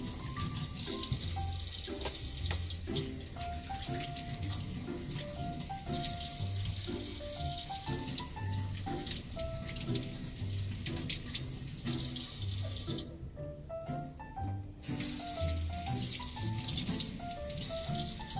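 Faucet water running into a small stainless kitchen sink as peeled potatoes are rinsed under it by hand, cutting out for about two seconds near the end and then running again. Background music with a steady beat plays throughout.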